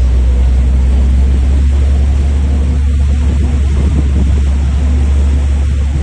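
Steady low rumble and rushing noise aboard a moving boat: wind on the microphone, with the boat's engine and water rushing past the hull.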